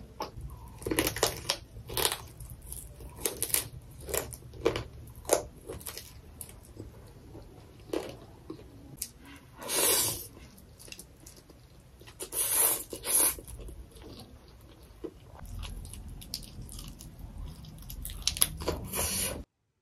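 A person eating close to the microphone: chewing and biting clicks, with a long slurp of fried noodles about halfway through. The sound cuts off suddenly just before the end.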